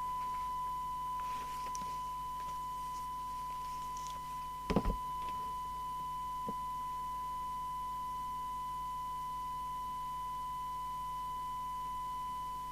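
Steady 1 kHz test tone: the FM CB receiver demodulating a signal generator's tone-modulated test signal during alignment, heard through a speaker. A short knock sounds about five seconds in.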